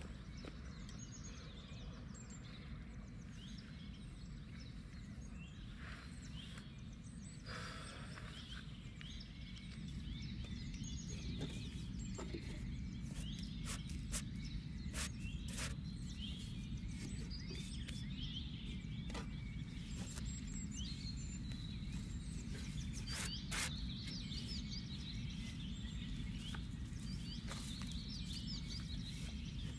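Outdoor ambience: birds chirping over a steady low rumble, with scattered sharp clicks and knocks. The background grows a little louder about ten seconds in.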